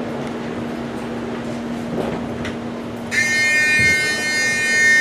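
Steady hum inside a commuter train standing with its doors open; about three seconds in, a loud, steady electronic door-closing warning tone starts and holds.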